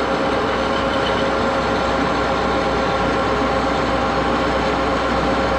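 1941 Axelson gear-head lathe running steadily, a set of steady gear-train tones over an even mechanical noise.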